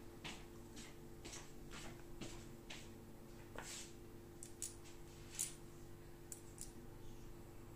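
Light metallic clicks and ticks from a cast 316 stainless steel Edwin Jagger 3one6 safety razor as its head and handle parts are handled and fitted together by hand, with one sharper click about five and a half seconds in.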